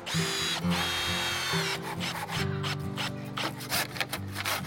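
Hand saw cutting through a weathered wooden stake in back-and-forth strokes, quicker and more clipped in the second half, with background music underneath.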